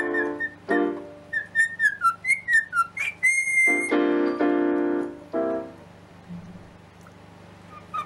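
Cockatiel whistling a tune in short chirped notes, with one long held whistle about three seconds in, alternating with notes played on an electronic keyboard. Both stop about six seconds in.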